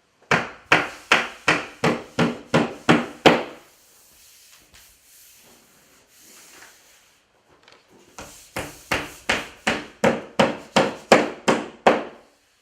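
Hammer driving nails through the top edge of a magnetic underlayment panel into a sheetrock wall. Two runs of about ten sharp blows each, about three a second, with a pause of a few seconds between them.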